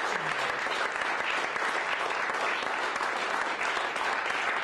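Audience applauding steadily, a dense, unbroken clapping.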